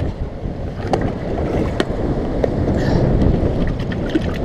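Wind buffeting the camera microphone over the wash of surf, with a few light clicks and knocks as a plastic bait-bucket lid is handled.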